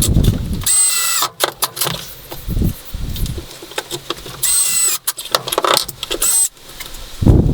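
Power tool whining in three short bursts of about half a second each, with stretches of rough low rubbing or scraping noise from work on wood, one near the end.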